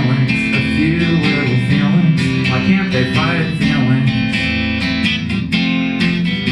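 Live band playing the instrumental close of a song, with strummed acoustic guitar chords to the fore.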